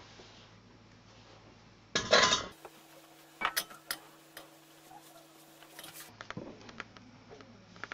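Stainless steel pot and perforated steamer basket being handled on a stovetop: metal clatter and clinks, with a short loud rattle about two seconds in and a few sharp clinks a little later.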